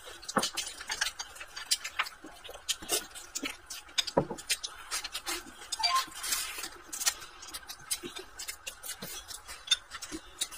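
Close-up eating sounds: chewing with a full mouth and lip smacks, with wooden chopsticks clicking against a porcelain rice bowl, making a run of small irregular clicks.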